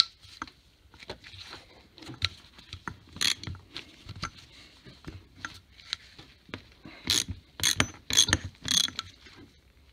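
Ratcheting clicks and metal clinks from a ratchet and T30 bit socket working the chainring bolts loose on a Shimano crankset. The clicks come scattered, with a louder cluster from about seven to nine seconds in.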